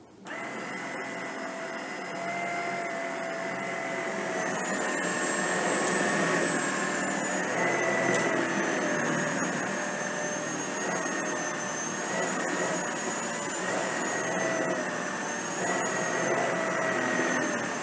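Tineco PURE ONE S11 cordless stick vacuum running on carpet with its motorized multi-tasker cleaner head, picking up hair. It is a steady whine whose pitch wavers slightly. It starts suddenly at the beginning, and a higher whine joins about four seconds in.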